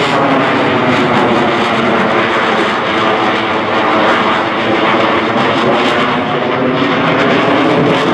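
Twin jet engines of an F/A-18 Super Hornet fighter running loud and steady as it manoeuvres. A continuous roar with a slowly wavering, phasing tone.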